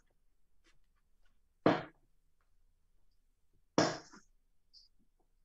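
Two steel-tip darts striking a Winmau Blade 5 bristle dartboard about two seconds apart, each a short, sharp impact.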